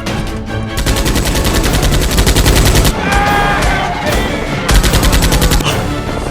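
Rapid automatic gunfire, in two bursts: one of about two seconds starting near the first second, and a shorter one of about a second after a brief gap. Background music runs under it.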